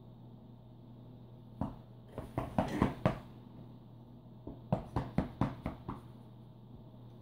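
A thin wooden stick flicked and tapped against bed covers, with the fabric rustling, in two flurries of quick taps: one about a second and a half in, the other about four and a half seconds in.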